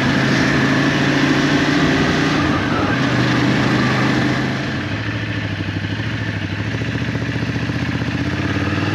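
Ducati motorcycle engine running as the bike cruises along a road, heard from the rider's seat with wind and road noise. The engine note and the noise drop a little about halfway through.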